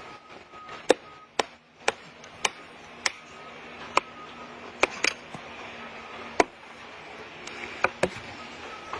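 Axe blows chopping into wood, about eleven sharp strikes spaced unevenly, some in quick pairs.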